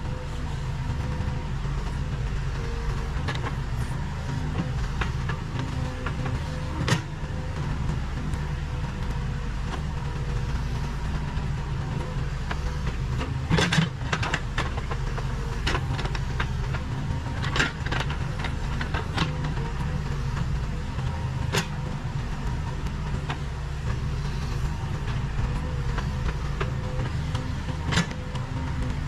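Case 580 Super K backhoe loader's four-cylinder diesel engine running steadily while working, with scattered knocks and clanks, the loudest about halfway through.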